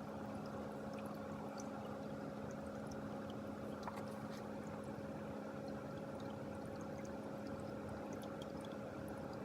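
Homemade ultrasonic humidifier running at full force: five mist-maker foggers churning the water in their container, with light splashing and small droplet ticks over a steady hum from the fan that blows the mist out.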